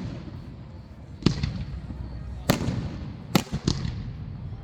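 Aerial fireworks bursting: four sharp bangs, the last two close together, each trailing off in a rolling echo.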